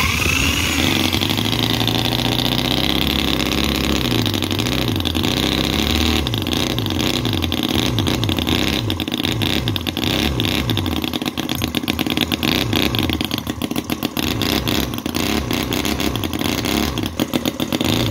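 Miniature brass petrol model engine spun up by an electric drill on its output shaft, catching with a rising whine and then running on its own. Its beat is steady at first, then wavers and pulses unevenly through the second half as a valve on top is adjusted.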